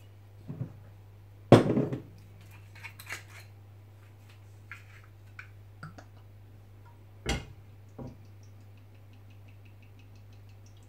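Glass oil bottles and a frying pan knocking and clanking on a gas hob: one loud clank about one and a half seconds in, a second about seven seconds in, with lighter knocks between. Near the end comes a run of quick faint ticks.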